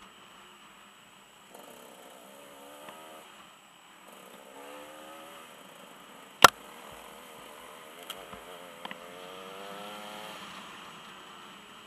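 Dirt bike engine heard through a helmet camera, rising in pitch twice as the bike accelerates along the trail. There is a sharp knock a little past halfway, the loudest sound, and two fainter clicks shortly after.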